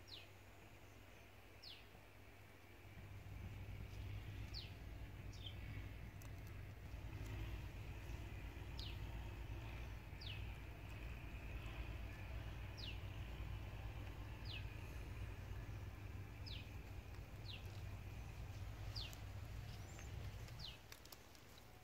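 A bird calling over and over, a short whistle falling quickly in pitch, repeated a dozen or so times every second or two. Under it a faint low rumble comes in about three seconds in and stops near the end.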